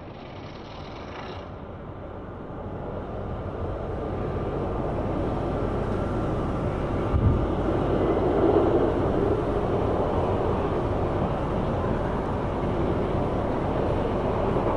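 RMC Raptor single-rail roller coaster train running along its steel track on a test cycle, a rolling rumble that builds over the first several seconds and then holds steady.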